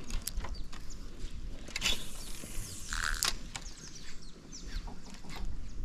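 Spinning reel being cranked during a lure retrieve, its gears and line roller giving irregular ticks and clicks as the rod twitches the lure.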